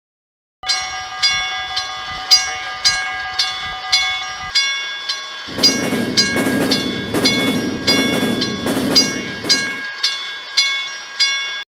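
Railroad crossing bell ringing steadily, just under two strikes a second, the standard warning that a train is approaching. About midway a train is heard passing for roughly four seconds under the bell, and then the bell rings on alone until it cuts off abruptly.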